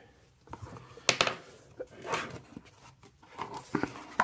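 Hands opening a cardboard watch box and lifting the watch in its tray: a scatter of short clicks, knocks and scrapes of the flap and packaging, with a sharper knock about a second in and another near the end.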